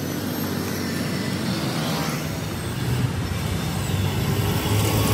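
Motor vehicle engine running steadily, a low even hum.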